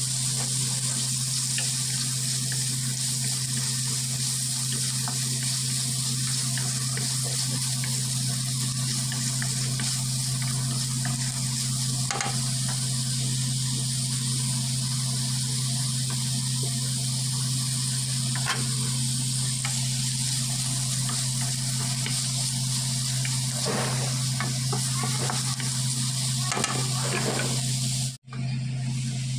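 Sliced bitter gourd sizzling as it sautés in oil in a wok, with occasional clicks and scrapes of stirring and a steady low hum underneath. The sound cuts out for a moment near the end.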